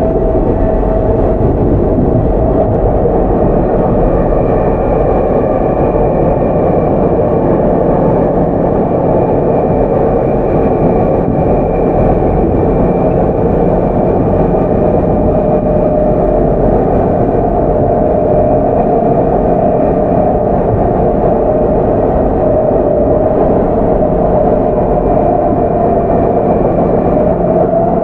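Tokyu 9000 series electric train with early Hitachi GTO-VVVF control, heard from inside while running at speed: a steady rumble of wheels on rail, with a whining tone that drifts slightly up and down in pitch.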